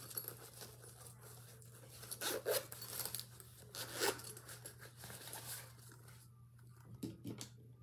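Rustling and scraping as a small fabric zip pouch and its contents are handled, in irregular short bursts, over a steady low hum.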